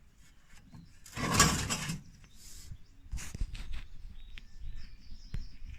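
Infrared grill burner being handled after removal from the barbecue: a loud scraping rasp about a second in, then scattered light knocks and clicks.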